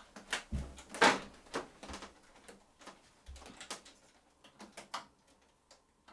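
Irregular small plastic clicks and taps as tiny two- and three-pin wire-harness connectors are fiddled into their sockets on an Epson WF-R5690 printer, with a couple of soft low bumps against the casing; the sharpest click comes about a second in.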